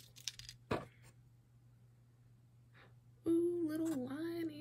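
A woman humming one held note that dips in pitch once and levels off, starting about three seconds in. Before it, a few light clicks of small metal jewelry pieces being picked up from a pile.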